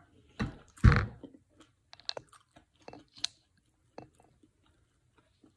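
Close mouth sounds of a person chewing fried chicken: scattered small wet clicks that thin out and stop in the second half. Two louder sounds come in the first second.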